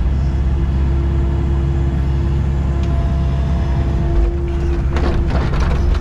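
Excavator engine running steadily with a constant hydraulic whine, heard from inside the cab. About five seconds in, a short gritty rush as soil tips out of the bucket into the trench.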